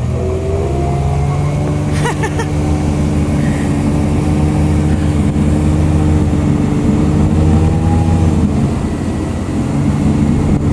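Motorboat engine running at speed while towing, over the rush of water and wake; the engine note climbs just after the start, holds steady, then eases off briefly near the end before picking up again.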